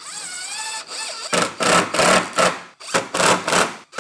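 Cordless power driver running cabinet screws into plywood panels: a motor whine that wavers in pitch for about a second, then about six short, loud bursts of driving.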